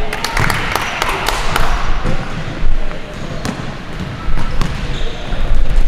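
Indoor court game play: a ball bouncing and players' feet knocking on the floor, with a cluster of sharp knocks in the first two seconds.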